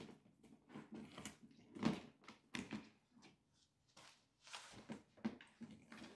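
Irregular soft taps, clicks and rustles of things being handled close by, coming every half second or so with a few sharper knocks.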